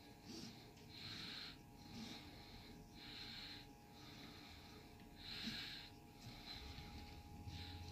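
Faint, repeated swishing of 550 paracord being pulled through a woven bracelet, the nylon rasping as each strand slides through, about once a second.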